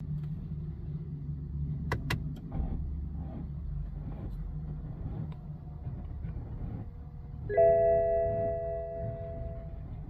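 Toyota GR Supra's warning chime, several tones sounding together for about two and a half seconds, marking a drivetrain malfunction warning with the engine not running. Before it there is a steady low rumble and a couple of sharp clicks.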